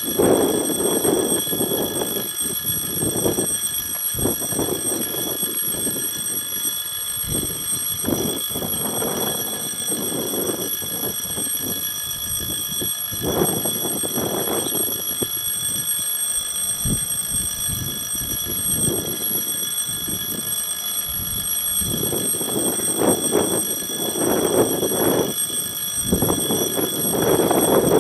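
Railway level-crossing warning signal sounding its alarm, a steady high ringing tone that runs on without a break, with irregular rushing noise underneath that swells near the end.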